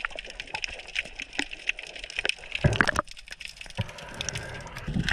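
Underwater ambience picked up by a submerged camera: a dense, irregular crackle of sharp clicks, with a couple of louder water rushes about three seconds in and again at the end.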